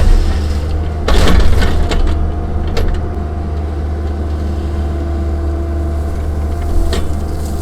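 Cat 305 mini excavator's diesel engine running steadily under load, with a loud burst of clatter and rushing noise about a second in and a couple of shorter knocks later, as the machine works backfill dirt.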